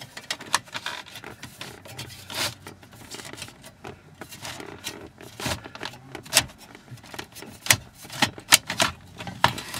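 A car stereo head unit's mounting cage being worked out of the plastic dash trim: irregular scraping and rubbing of metal against plastic, with many sharp clicks and knocks as it comes free of its clips.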